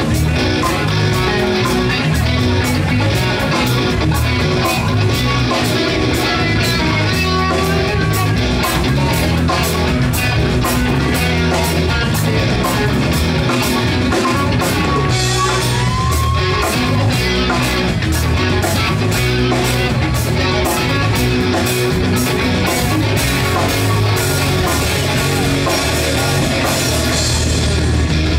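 Live rock band playing loud through a PA: distorted electric guitars, bass and a drum kit keeping a steady beat.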